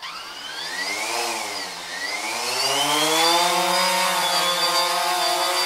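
Multirotor drone motors whining as they spin up. The pitch climbs, falls back about a second in, then rises again and holds steady.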